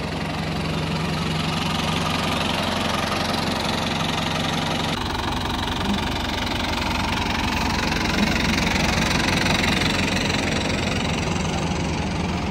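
Massey Ferguson tractor's diesel engine running steadily. The sound shifts abruptly about five seconds in.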